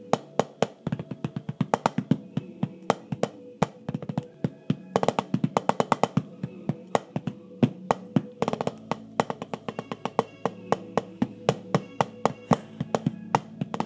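Drumsticks striking a rubber drum practice pad in quick, sharp strokes, with dense fast runs twice, about a third and two thirds of the way through. A recorded song plays underneath.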